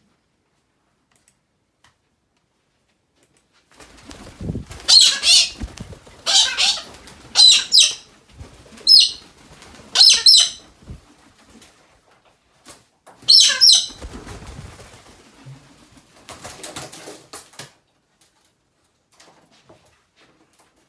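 A galah cockatoo flapping its wings in a series of short, loud bursts of wingbeats, with a few quieter flurries near the end.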